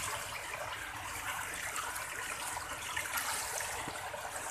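Shallow floodwater running over a stony lane, a steady rush of water.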